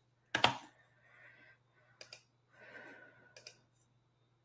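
A short, loud puff of breath on a headset microphone, then softer breathing and faint clicks, about two and three and a half seconds in.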